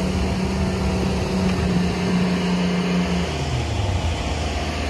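Concrete truck's diesel engine running at raised revs with a steady hum, then dropping to a lower idle about three seconds in.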